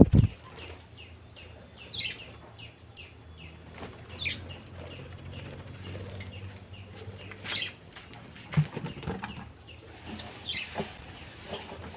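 Budgerigars chirping in quick, short high calls, with a few louder flutters of wings.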